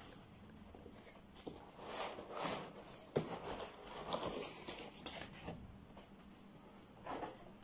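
Cardboard laptop box and its packaging being handled: rustling, sliding and scraping of cardboard and plastic wrap in several short spells, with one sharp knock about three seconds in, the loudest sound.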